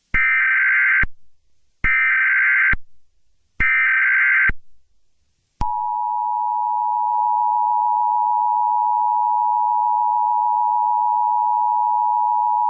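Emergency Alert System SAME header: three data bursts of about a second each, coming in quick succession, then the steady two-tone EAS attention signal, starting about five and a half seconds in and holding on.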